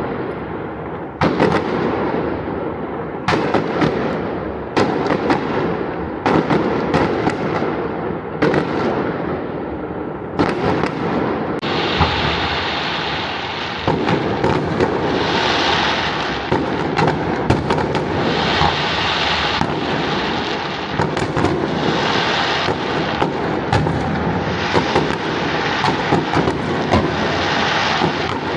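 Fireworks bursting: for the first twelve seconds, separate bangs about every second or so, each trailing off in a fading crackle, then a dense, continuous barrage of bangs and crackling.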